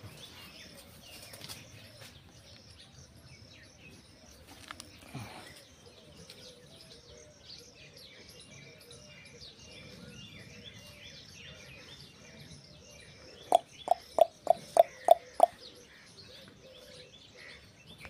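Small birds chirping in the background, broken near the end by a quick run of about seven loud, sharp notes, roughly three a second.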